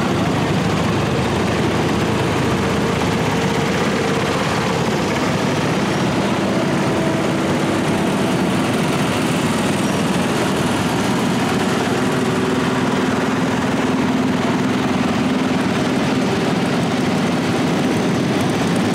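Many small single- and twin-cylinder garden tractor engines running together as a line of garden tractors idles and creeps along, a steady dense engine noise with no pauses.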